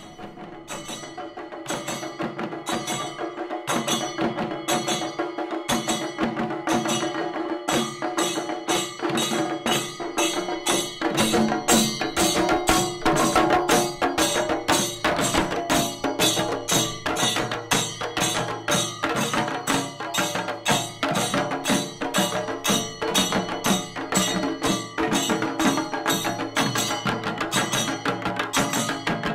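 A group of chenda drums, Kerala cylindrical drums, beaten with sticks by a troupe of drummers. The strokes are sparse at first and fill in to a fast, dense rhythm, with a steady held tone underneath.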